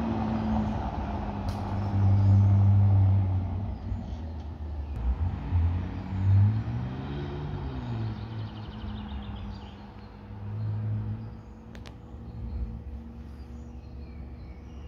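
McLaren 600LT's twin-turbo V8 driving off and fading into the distance. Its pitch rises and falls with the revs, with a rev rise about six seconds in.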